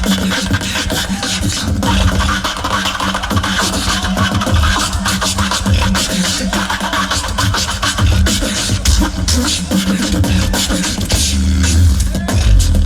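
Tag-team beatboxing: rapid mouth-made drum clicks and hi-hats over a continuous deep bass line and a steady hummed low tone.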